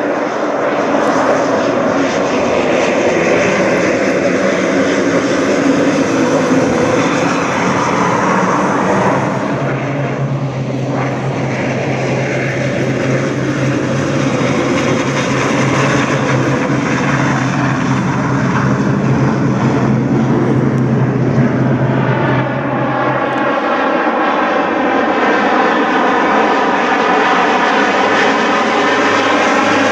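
Air Tractor AT-802AF Fire Boss's Pratt & Whitney PT6A turboprop and propeller running at power as the floatplane flies low past. A steady low propeller hum holds through the middle, and a sweeping, shimmering tone comes in over the last several seconds.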